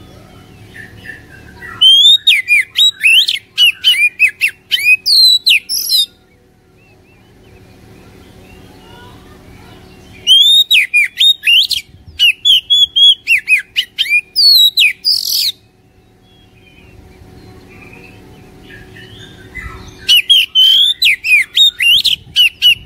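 Oriental magpie-robin singing in three loud bursts of rapid, varied whistles and chattering notes, each a few seconds long, separated by pauses of about four seconds.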